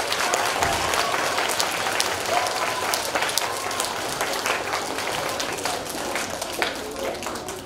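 Audience of schoolchildren applauding, dense clapping with some voices mixed in, tapering off near the end.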